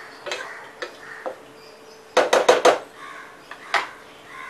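A spatula knocking against a metal saucepan of thick gravy: a few light knocks while stirring, then four quick loud knocks about two seconds in, and one more near the end.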